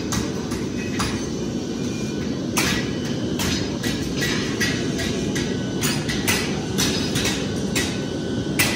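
Irregular hammer strikes and clinks of steel, one or two a second, each ringing briefly, over a steady low rushing noise; the loudest strike comes near the end.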